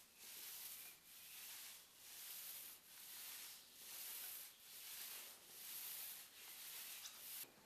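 Long-handled paint roller rolling wet concrete stain onto a concrete floor: a faint swishing hiss that swells and fades with each back-and-forth stroke, about one stroke a second.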